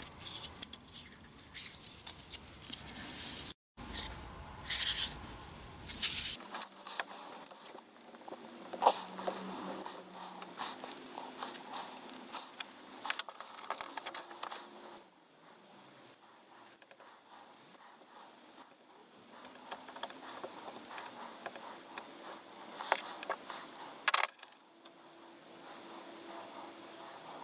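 Hands working at a wooden workbench: irregular scrapes, light taps and clicks as a saw-blade knife blade, its wooden handle and small brass pins are handled and fitted.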